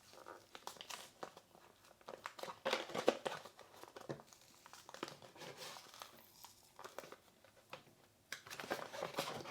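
Packaging being handled and opened, crinkling and rustling in irregular bursts, loudest about three seconds in and again near the end.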